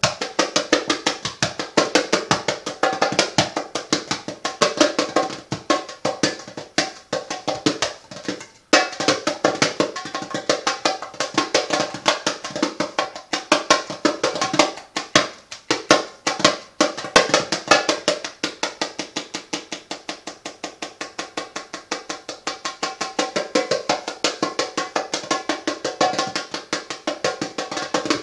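Hand drum played in a fast, steady rhythm of rapid strokes, with a brief break about eight and a half seconds in.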